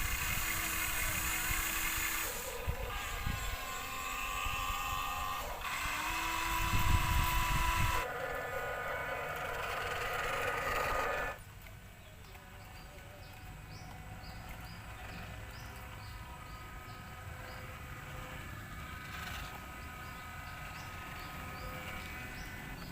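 Small electric gear motors of radio-controlled toy construction vehicles whining, in several short clips that cut from one to the next. About eleven seconds in the sound drops suddenly to a quieter background with faint, high chirps.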